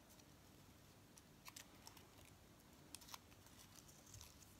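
Very faint, scattered clicks and crackles of thin paper being folded along its creases by hand.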